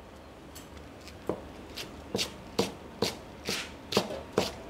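Chef's knife slicing a leek stalk on a plastic cutting board: a steady rhythm of crisp cuts, each ending in a knock of the blade on the board, a little over two a second, starting about a second in.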